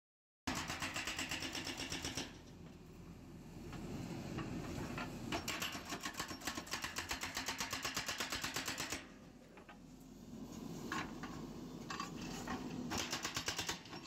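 Hydraulic breaker on a JCB 3DX backhoe loader hammering concrete pavement in three bursts of rapid blows, near the start, in the middle and near the end, with the backhoe's engine running in between.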